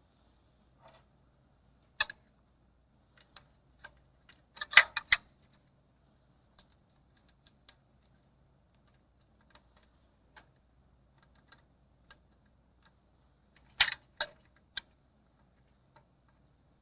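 Scattered sharp clicks and taps, with loud clusters of several clicks about five seconds in and again near the end, over a faint low hum.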